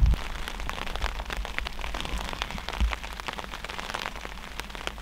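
Rain pattering on a tent's fabric: a dense, uneven scatter of small drops ticking.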